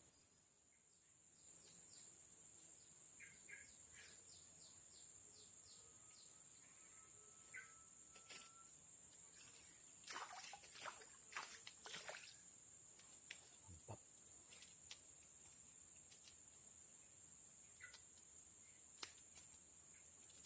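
Forest ambience: a steady high-pitched insect drone, with scattered short bird chirps and a faint whistle, and a cluster of sharp clicks about ten to twelve seconds in.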